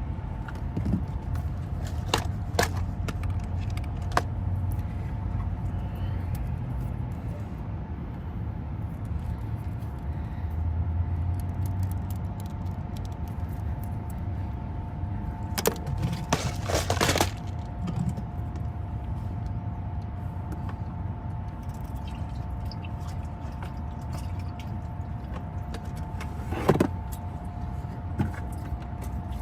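Steady low rumble of a car moving, heard from inside the cabin, with two faint steady hum tones and occasional clicks and rattles, a short cluster of them about halfway through.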